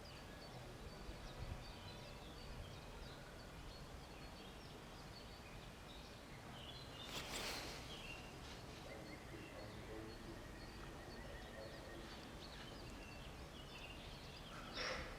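Quiet outdoor background with small birds chirping on and off, a faint thin tone held for a few seconds in the middle, and a brief rush of noise about halfway through and again near the end; the siren is not sounding.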